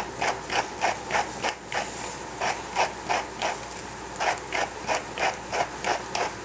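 Doll-shaped seasoning dispenser being worked over a pot of cabbage: a run of sharp clicks, about three a second, with two short pauses.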